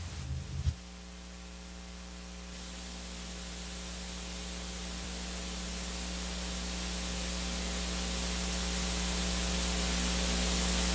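Steady electrical mains hum under a layer of hiss, slowly growing louder.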